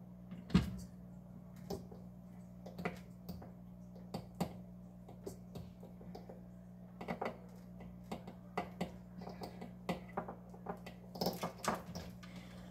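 Scattered light clicks and taps of a mini waffle maker's power cord and plug being unwound and handled against the countertop, over a steady low hum.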